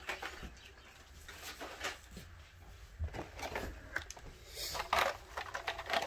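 Plastic blister packs and card-backed die-cast cars rustling and clicking as they are pulled from a cardboard case and handled, with a short cooing sound near the end.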